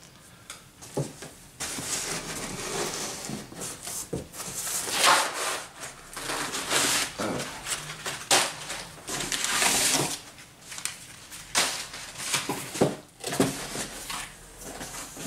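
Cardboard rustling and scraping with occasional knocks as boxes are handled and shifted inside a large cardboard shipping carton.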